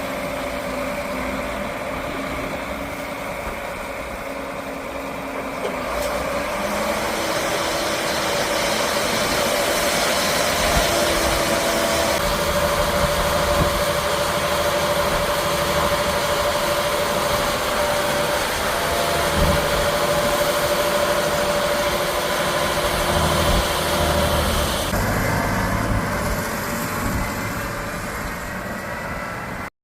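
Farm machinery engine running steadily at corn harvest, with a steady whine over the engine noise. It grows louder about seven seconds in and eases a little near the end.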